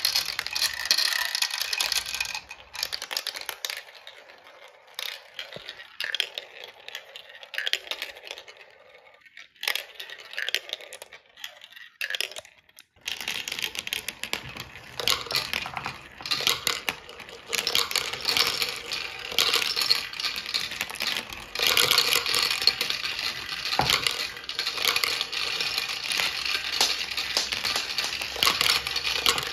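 Several marbles rolling and clattering down a plastic marble-run track, with scattered clicks for the first half, then a dense, continuous rattle from about halfway as they circle around a plastic funnel.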